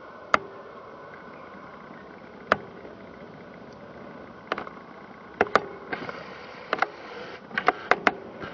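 Faint steady hiss and whine of a distant taxiing Airbus A330-243F's Rolls-Royce Trent 700 jet engines, broken by sharp clicks and knocks close to the microphone, a few early and more bunched together in the second half, with a brief rustle partway through.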